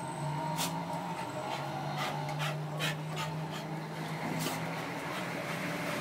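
A dog panting as it jumps and paws at a dead rat on stacked plastic chairs, with about five short sharp scrapes of its claws, over a steady low hum.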